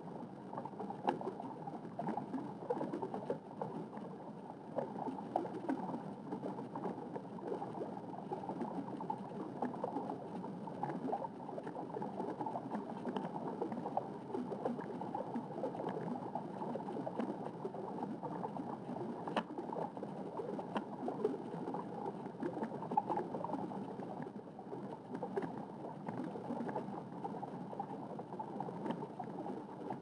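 Steady underwater water noise, a low bubbling, gurgling rush with scattered faint clicks.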